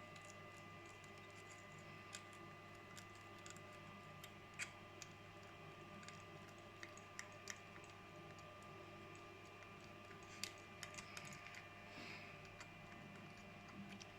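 Near silence: a steady low electrical hum with faint, scattered clicks and ticks.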